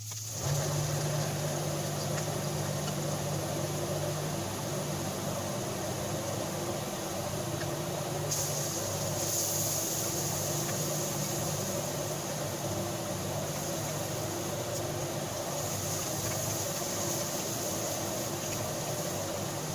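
A steady mechanical hum with a constant hiss, starting about half a second in.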